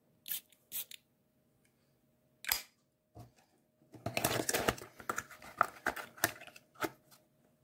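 A perfume bottle and its cardboard box being handled: three short hissing bursts in the first few seconds, then about three seconds of clicking and rustling.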